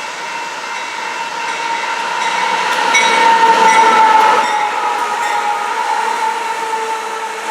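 Union Pacific coal train passing close by, loudest about three to four seconds in, with several steady ringing tones over the rolling noise that dip slightly in pitch as it goes by.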